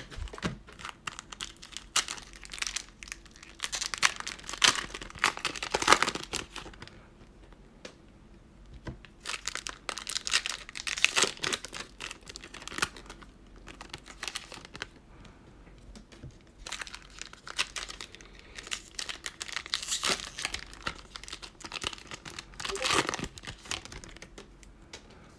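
Plastic wrapper of a sealed cello pack of football trading cards crinkling and tearing as it is pulled open, in several spells of rustling with short quieter pauses.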